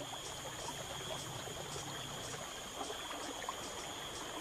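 Flowing river water rushing steadily, with a high pulsing drone of rainforest insects at about two pulses a second.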